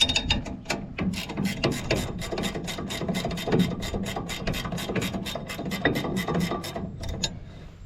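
Hand ratchet wrench clicking rapidly, about six clicks a second, as bolts are taken out of a hay baler's airbag slides; the clicking stops near the end.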